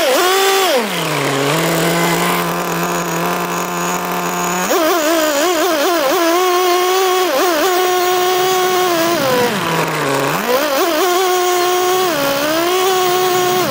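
Nitro RC car's single-cylinder two-stroke glow engine. It settles to a low idle for a few seconds, then revs up and runs at high pitch, wavering up and down with the throttle as the car drives. Near ten seconds in it drops back briefly before revving up again.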